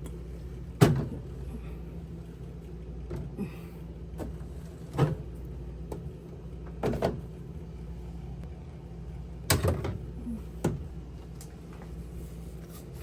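Bottles and food containers being set down on refrigerator shelves: about six separate knocks and clunks, the loudest about a second in and a cluster around nine to ten seconds in, over a steady low hum.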